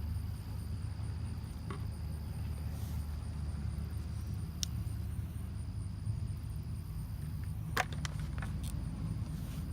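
A steady low machine rumble with a faint high steady whine over it, and a few sharp clicks, the loudest about eight seconds in.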